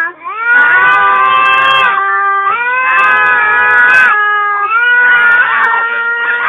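A toddler screaming in long, high-pitched held notes, three in a row, each about two seconds, with short breaths between.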